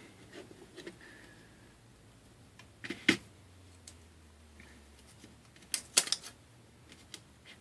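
Scattered small clicks and taps of hand tools and tiny parts against an iPhone 5 being reassembled, with two louder clusters of clicks about three and six seconds in.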